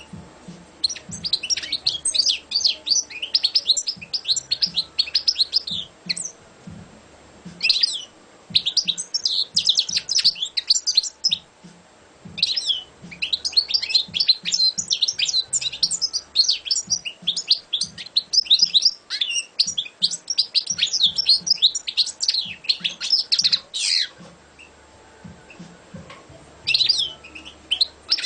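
European goldfinch singing: long runs of rapid, high twittering notes in several bouts with short pauses between them, and a brief burst near the end.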